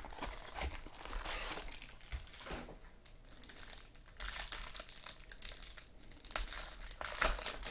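Crinkling and tearing of a trading-card pack wrapper as it is ripped open and handled, in irregular crackly bursts.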